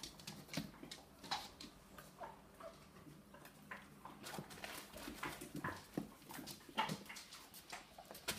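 Small puppies moving about, their claws and feet making scattered light clicks and scrabbles, with a few brief puppy squeaks and whimpers.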